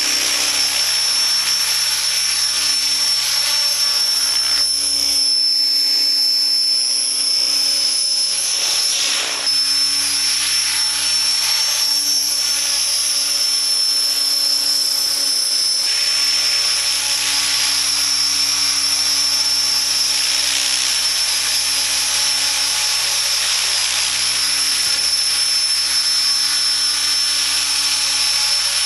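Align T-Rex 600 ESP electric RC helicopter in flight. Its motor, gears and spinning rotor give a steady high-pitched whine over a constant rushing noise.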